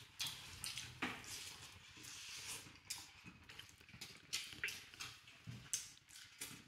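Faint sounds of people eating biryani by hand: irregular soft smacks and clicks of chewing and of fingers working rice on steel plates.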